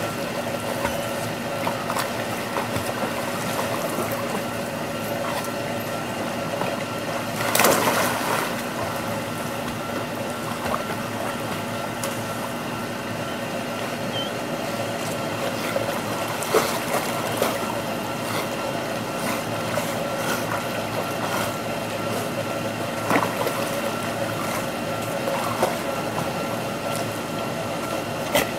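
Dogs swimming and wading in a backyard pool: water splashing and sloshing over a steady hum, with one louder splash about eight seconds in and a few short, sharp splashes later on.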